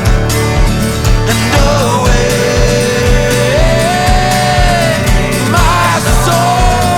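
Folk-rock band music with a fast, steady drum beat under long held, sliding melody notes, with no sung words.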